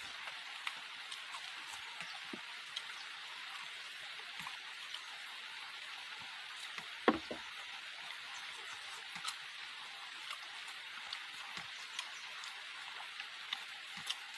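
Steady hiss of rain with scattered small drips and clicks, and a single louder crunch about halfway through, a bite into a raw chili.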